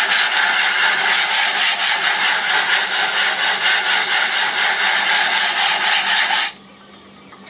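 80-grit sandpaper held against a wooden bowl spinning on a lathe, wet-sanding with water-based sanding sealer: a loud, steady rasping hiss as the sawdust and sealer are worked into a slurry to fill the wood's cracks. The sanding stops suddenly about six and a half seconds in, leaving only the lathe's low hum.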